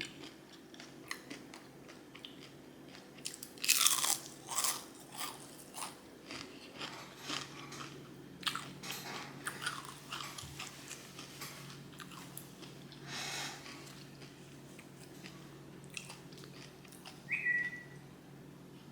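Close-miked crunching and chewing of fried food, with irregular crisp bites; the loudest crunches come about four seconds in and again around thirteen seconds. A brief high squeak near the end.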